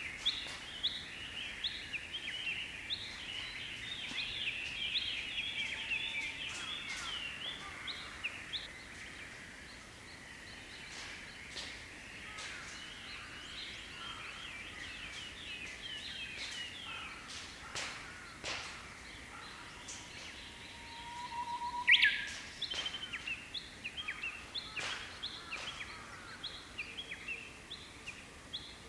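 A Japanese bush warbler sings its 'hoo-hokekyo' song once, about three-quarters of the way through: a held low whistle, then a loud, quick falling phrase. A dense chatter of other small birds' chirps runs underneath throughout.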